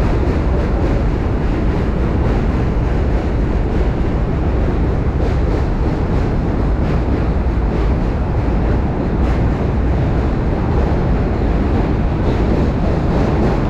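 Strong wind buffeting a chest-mounted camera's microphone while cycling: a loud, steady, low rumbling noise.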